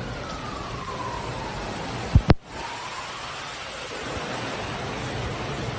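Steady rush of floodwater running down a street, with a car driving slowly through the water. Two brief, loud knocks come a little over two seconds in.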